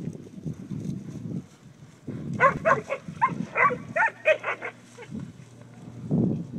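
Herding pups yipping, a quick run of about a dozen short, high barks starting a couple of seconds in and lasting about two and a half seconds.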